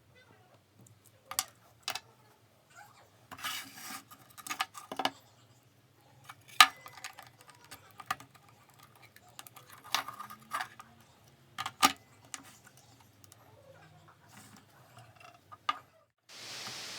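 Scattered clicks and light knocks of small hard parts being handled and set down on a workbench, with a short hiss near the end.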